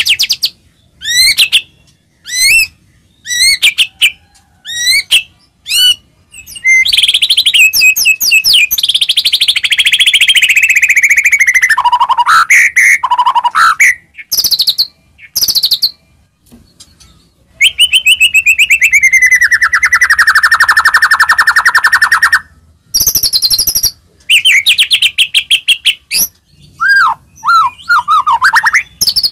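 White-rumped shama singing loudly: quick runs of short, sharp whistled notes, broken by two long rattling trills that slide down in pitch, one starting about a quarter of the way in and one past the middle.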